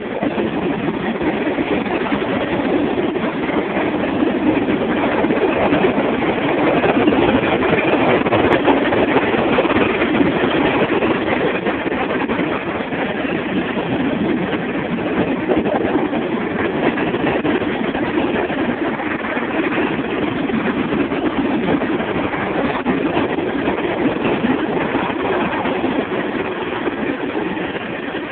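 Norfolk Southern freight train's hopper, tank and box cars rolling steadily past, their steel wheels running on the rails in a continuous, even noise.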